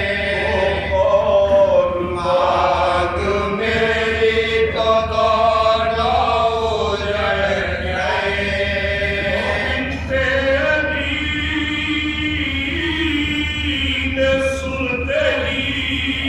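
Unaccompanied Urdu marsiya, a mournful elegy, chanted by a group of men in unison, with long held, slowly bending melodic lines sung into a microphone.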